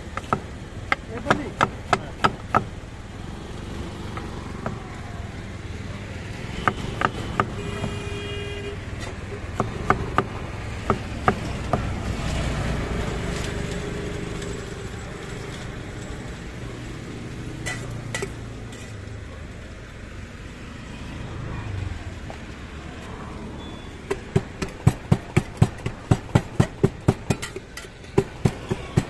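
Hinged lever knife chopping guava on a metal board: short runs of sharp chopping strikes. Near the end, a quicker run of knocks, about three or four a second, as a wooden pestle works in a steel pot, over a steady low traffic rumble.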